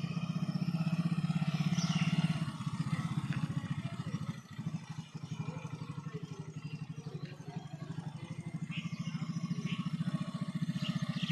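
Motorcycle engine running with a fast, even pulse, a little louder for the first two seconds and dipping briefly about four and a half seconds in.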